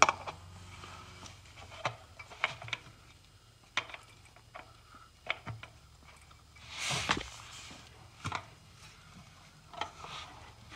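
Scattered light clicks and taps of a hand fitting a new oil filter into a mower's hydrostatic transaxle filter housing, with a short, louder rustle or scrape about seven seconds in.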